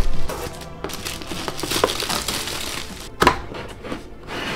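Plastic mailer packaging crinkling and rustling as a cardboard box is unwrapped by hand, with one sharp knock about three seconds in.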